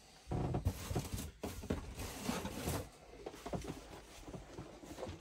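Cardboard model-kit boxes being handled, rustling and scraping as they are moved across a cloth, busiest in the first half and quieter after.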